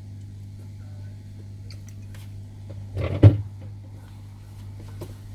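A single dull knock about three seconds in, with a few faint small clicks over a steady low hum.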